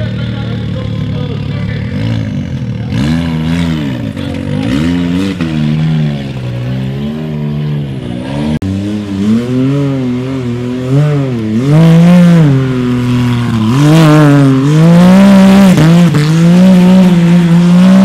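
UTV race engine running steadily, then revved up and down again and again in short bursts. The revs climb higher and are held longer in the last few seconds.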